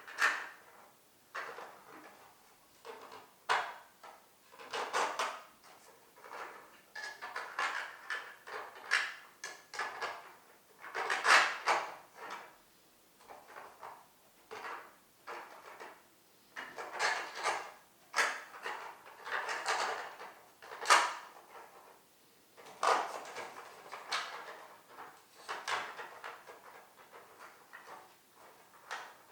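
Hard 3D-printed plastic tiles clacking, sliding and scraping against each other as they are handled and fitted together. The sounds come in irregular bursts of clicks and scrapes with short pauses between them.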